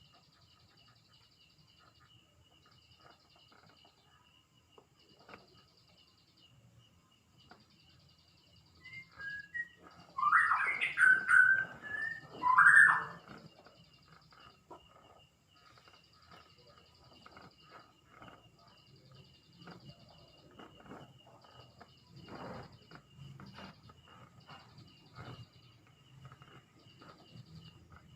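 Birds chirping throughout, with a louder run of quick, sliding calls for a few seconds about ten seconds in.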